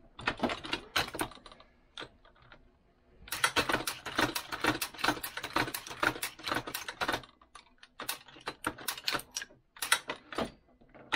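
Hornady 366 shotshell reloading press being worked: quick metallic clicking and clattering, in one long spell from about three seconds in and a shorter one near the end.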